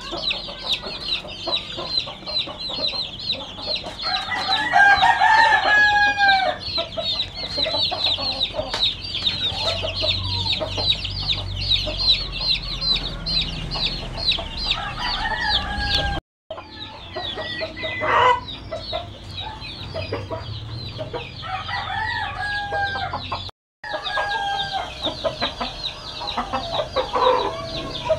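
A brood of chicks peeping constantly, many high, short peeps overlapping. Over them, an adult rooster crows several times, each crow a long call that falls away at the end.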